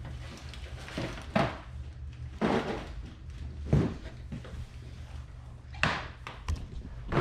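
Boxed toys in cardboard packaging being pulled out and set down: about five short thuds and scrapes, one to two seconds apart, over a steady low hum.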